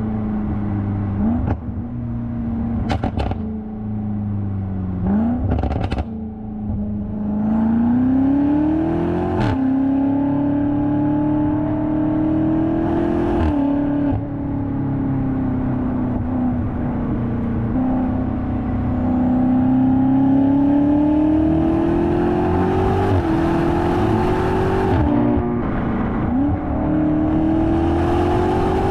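BMW F90 M5 Competition's twin-turbo 4.4-litre V8 exhaust, heard from a GoPro on the rear of the car, pulling hard through the gears. The pitch climbs and then drops sharply at each gear change, with sharp cracks at several of the shifts.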